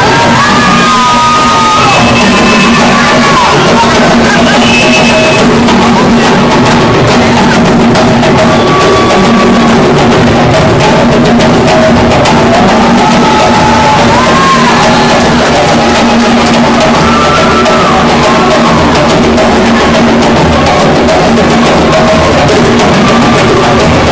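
Live djembe drum ensemble playing a dense, driving rhythm for African dance, very loud and steady, with voices calling out over the drums now and then.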